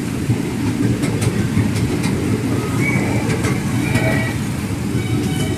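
Small narrow-gauge ride-on train running along its track, a steady rumble of wheels on rail with a few faint high squeals about three and four seconds in.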